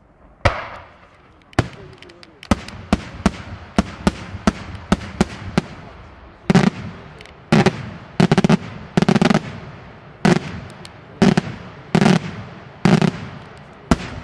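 Daytime fireworks shells bursting in a rapid string of sharp bangs, about two a second. From about halfway they give way to heavier, deeper reports roughly once a second, some coming in quick clusters.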